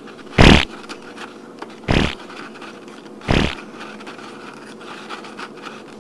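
Three short fart sound effects about a second and a half apart, the first the loudest, over a faint steady room hum.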